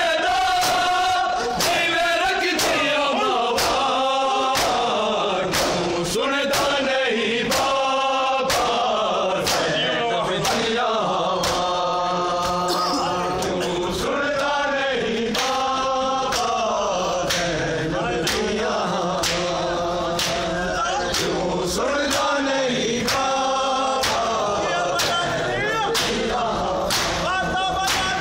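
A group of men chanting a noha (Shia lament) together, with the sharp slaps of hands striking bare chests in matam about once a second.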